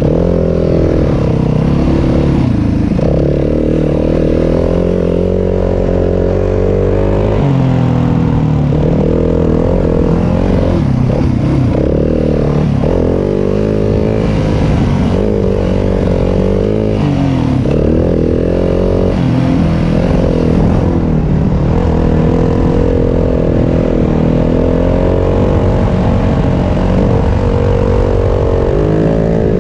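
Yamaha WR250F dirt bike's single-cylinder four-stroke engine running under way, its revs rising and falling over and over as the throttle opens and closes.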